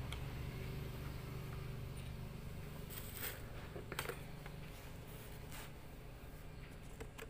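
Low steady electrical hum from the battery-charging setup, easing off a little past the middle, with a few faint clicks and knocks as the phone is handled.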